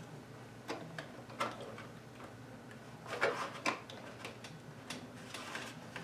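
Scattered plastic clicks and knocks as a power cord's connector is worked into the power socket of a Canon Pixma MG7120 printer. The loudest cluster of knocks comes about halfway through.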